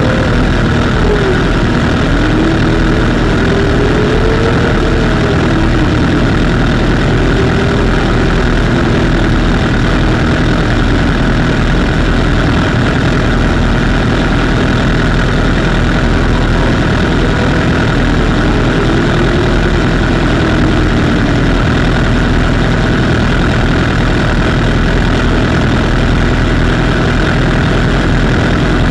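Several sport motorcycle engines idling together. The note wavers, with a few slow rises and falls in pitch in the first several seconds and again around twenty seconds in.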